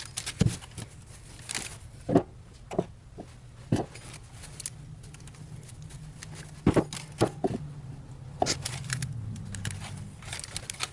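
Irregular clicks and light knocks of hub parts and tools being handled during wheel-hub assembly, over a low steady hum.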